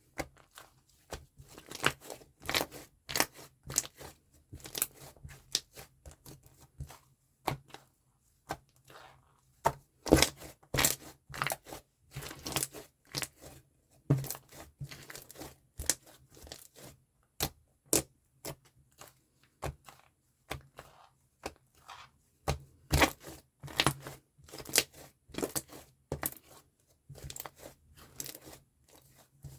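Slime being squeezed, stretched and poked by hand, making irregular sharp clicks and crackles, several a second.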